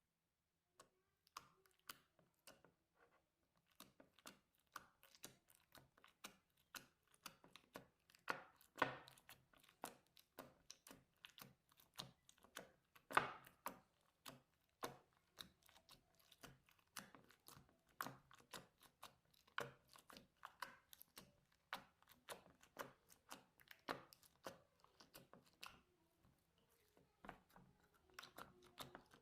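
Slime being squeezed and pressed by hand, giving irregular crisp pops and clicks, roughly one or two a second, some much louder than others.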